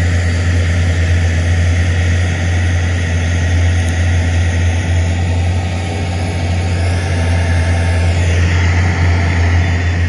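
Heavy diesel engine of a crawler bulldozer running steadily with a continuous low drone.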